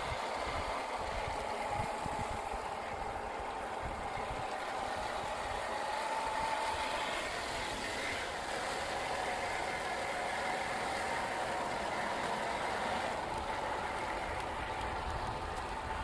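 1/10-scale RC crawler truck's electric motor and gearbox whining steadily, with a slight rise and fall in pitch, while it wades through muddy water, with the splash and swish of water around the wheels and low rumbles of wind on the microphone.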